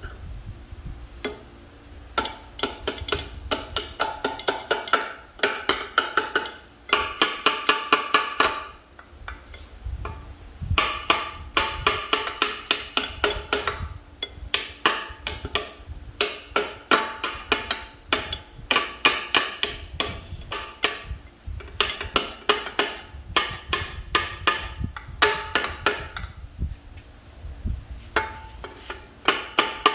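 A hammer striking a steel punch to drive a part of an M5R1 manual transmission back into place: runs of quick, ringing metal taps, several a second, with short pauses between the runs.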